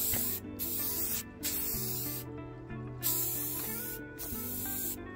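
Aerosol spray-paint can hissing in short bursts of about a second each, with brief pauses between, as paint is sprayed onto a radio cabinet's trim.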